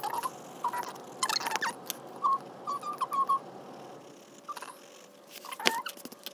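Colored pencil scratching on sketchbook paper in short strokes, with a series of short, high chirps, several in quick succession about two to three seconds in.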